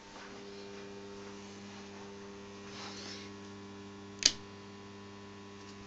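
Steady electrical mains hum from mains-powered bench electronics, with one sharp click a little past four seconds in.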